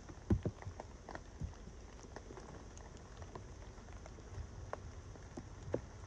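Rain drips pattering irregularly on a tarp, scattered light taps over a low steady rumble, with a few louder low thumps about half a second in, again about a second later, and once near the end.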